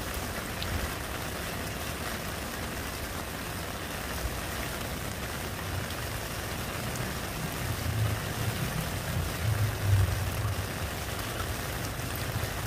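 Steady rain falling on a puddle, a dense patter of drops splashing into the water. A low rumble swells a few times in the second half.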